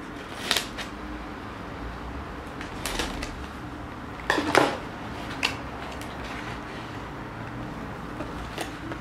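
Scissors cutting the packing tape on a cardboard box, then its cardboard flaps being pulled open: a handful of separate scrapes and rustles, the loudest about four and a half seconds in.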